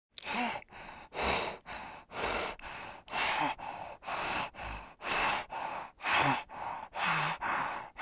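An animal's heavy, rhythmic breathing close up: a loud, noisy breath about once a second, each followed by a softer one.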